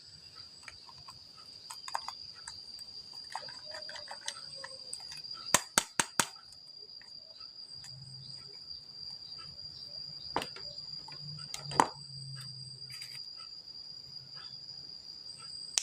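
Insects trilling steadily at a high pitch, with a few sharp clicks or taps over it, the loudest a quick cluster about halfway in and one more later.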